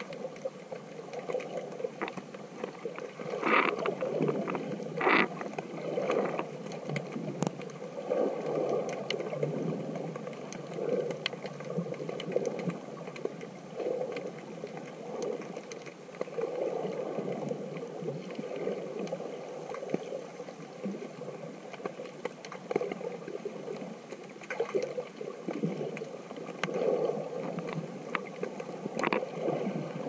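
Muffled underwater wave surge and water movement picked up through a GoPro's waterproof housing, rising and falling unevenly. A few sharp clicks or knocks stand out, two about three and a half and five seconds in and one near the end.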